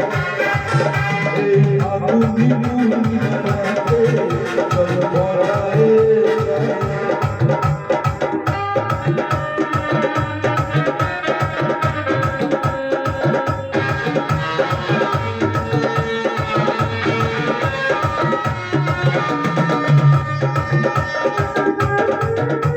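Instrumental break of a Bengali song: melodic instruments over a steady, busy hand-drum rhythm, with no singing.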